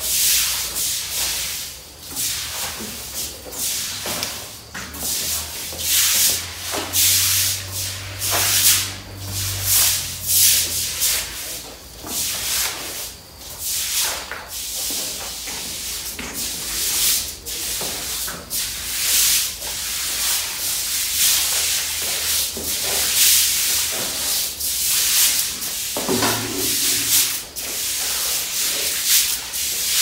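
Stiff plastic-bristle push brooms scrubbing a wet concrete floor, in repeated uneven swishing strokes about once or twice a second.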